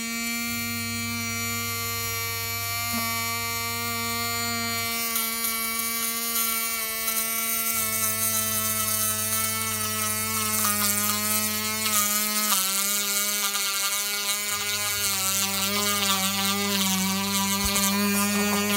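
Small electric motor running with a steady buzz that sags slightly in pitch. A lower hum cuts in and out three times, for about four seconds each time, and a hiss builds up after about five seconds.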